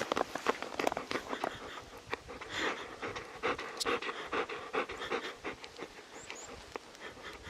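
Labrador retriever panting, a quick run of short breaths.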